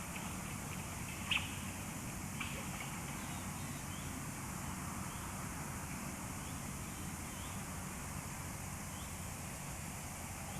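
A few short, high bird calls, the loudest about a second and a half in, with fainter chirps coming back every so often over a steady hiss and low hum.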